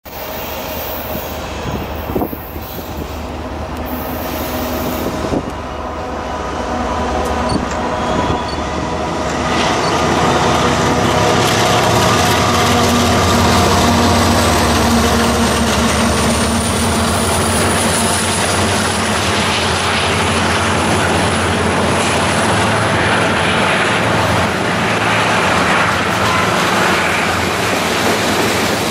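Two BNSF diesel locomotives running, growing louder over the first ten seconds as they approach and pass at slow speed. Loaded coal hoppers then roll by, with a thin high steady wheel squeal from about halfway on.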